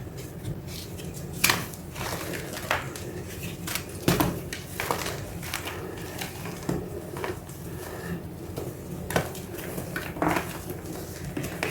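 Irregular light clicks and knocks, as of hard objects being handled, over a steady low hum, with a few louder knocks scattered through.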